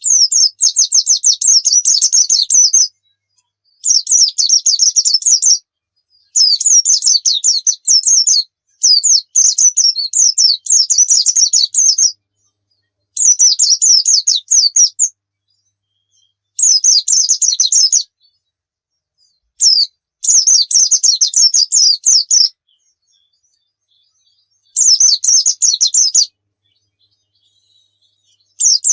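A white-eye (pleci) singing a run of high, rapid twittering song phrases. Each phrase lasts one to three seconds, with short silent gaps between them.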